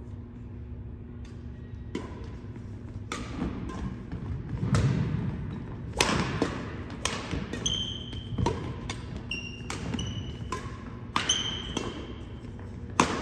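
Badminton doubles rally: sharp cracks of rackets hitting the shuttlecock about once a second, ringing in a large gym hall. Short squeaks of sneakers and thuds of footfalls on the wooden court come in between.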